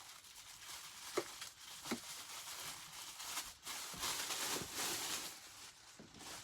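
Rustling and crinkling of packaging as a vacuum cleaner's hose is pulled out of its box and wrapping, with a few light knocks.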